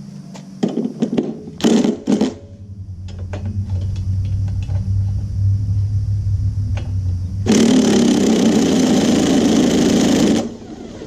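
A few metal clinks as a socket goes on, then a cordless impact driver spins the lawnmower engine over by its flywheel nut to check for ignition spark: a steady low run building for several seconds, then about three seconds of loud harsh rattling before it stops.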